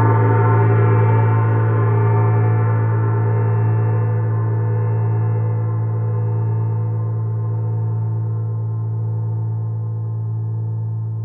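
Paiste Brilliant gong ringing out after a single strike: a strong, steady low hum under many shimmering overtones, fading slowly as the higher tones die away first.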